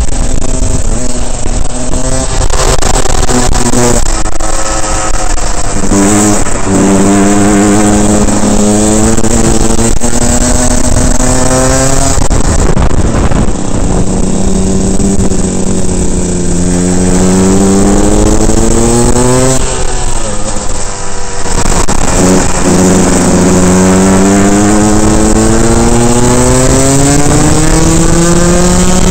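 Rotax 125 single-cylinder two-stroke kart engine heard onboard, rising in pitch on three long pulls along the straights. The pitch drops away between the pulls as the throttle comes off for the corners.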